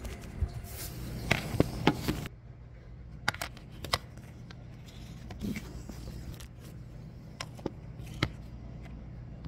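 Scattered sharp clicks and knocks with rustling, the rustling stopping suddenly a little after two seconds in, over a steady low hum.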